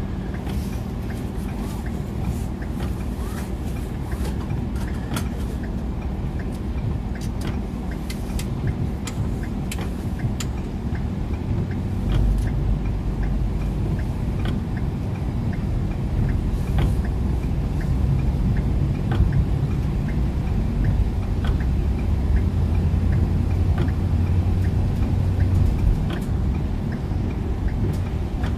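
Car driving in rain, heard from inside: a steady low rumble of engine and tyres on wet road, growing louder about twelve seconds in. Many irregular sharp clicks of raindrops hit the car, thickest in the first half.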